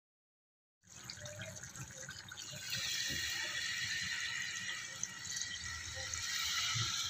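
Coconut milk being poured in a steady stream into a pot of eggplant curry, starting about a second in and growing a little louder partway through.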